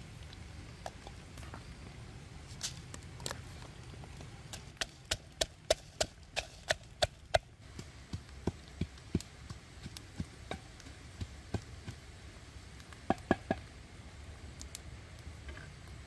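A blade chopping on wood: a quick run of sharp strokes, about three a second for a couple of seconds, then scattered lighter strokes and a loud pair near the end.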